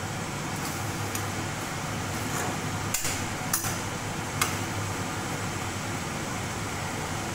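Long metal spatula stirring mustard greens and pork in a kadai, with a few sharp clinks of metal on the pan between about three and four and a half seconds in, over a steady hiss.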